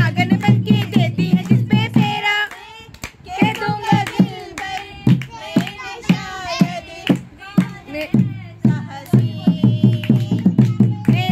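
Dholki drum played in a fast beat, with group singing and hand claps keeping time. The drumming drops out about two seconds in, the singing carries on over lighter strokes, and the fast drumming comes back near the end.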